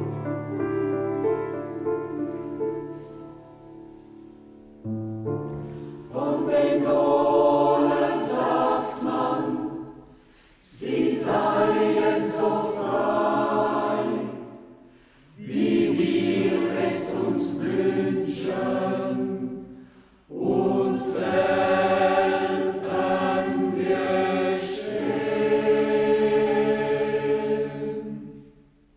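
Clarinet holding low notes that fade away, then a mixed choir with a solo soprano sings four phrases with short breaks between them, the last dying away near the end.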